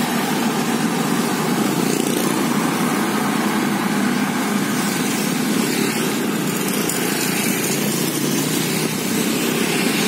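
Steady street-traffic noise heard while riding along a road: small motorcycle engines running alongside road noise, at an even level throughout.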